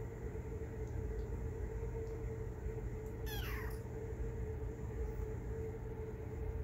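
A kitten gives one short, high meow a little after three seconds in, over a steady low background hum.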